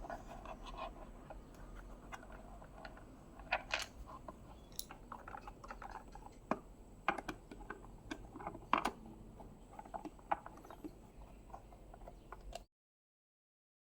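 Irregular light clicks and knocks of small hard objects being handled, over a faint steady hum; the sound cuts out abruptly near the end.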